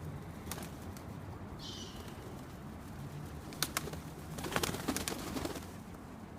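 Flock of feral pigeons crowding round to be fed, with a short high bird call about two seconds in and a flurry of sharp wing claps and flaps from about three and a half to five and a half seconds in.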